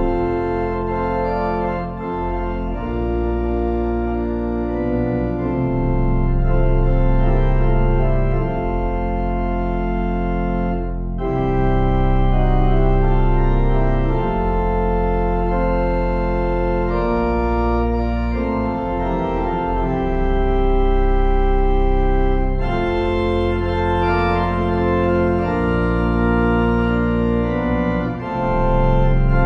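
Organ playing slow, held chords over a deep bass, moving to a new chord every few seconds.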